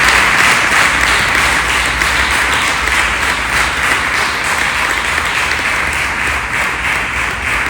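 Congregation clapping hands in sustained applause, a steady patter that slowly eases off.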